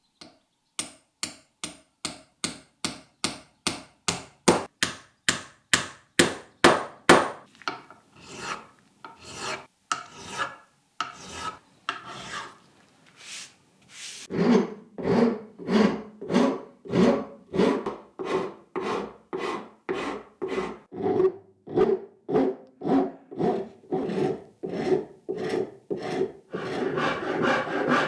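Hand filing or abrading strokes: a steady run of short scraping strokes, about three a second, that loosen and turn irregular around eight seconds in. From about fourteen seconds they come back fuller and deeper, and near the end they run together into continuous rubbing.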